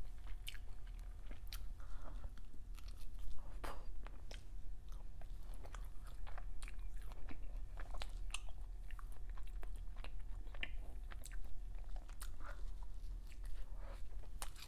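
Close-miked chewing and biting of soft food, an irregular run of short mouth clicks and smacks, over a steady low hum.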